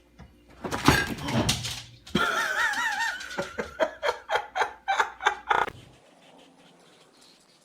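A person laughing in a run of short bursts, about three a second, ending near the middle. Before the laughter comes a short noisy stretch and a wavering high-pitched sound.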